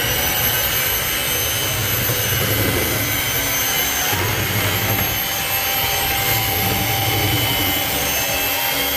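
Electric hand mixer running steadily, its beaters whisking batter in a metal bowl: a constant motor whine.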